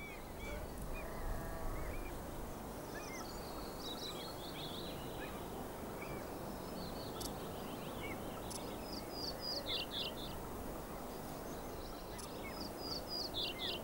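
Small songbirds singing: repeated series of short, high chirps and trills, over a steady low background hiss.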